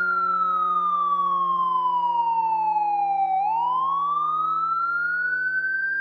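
Fire truck siren wailing: its tone falls slowly for about three seconds, then climbs back up, over a steady low hum.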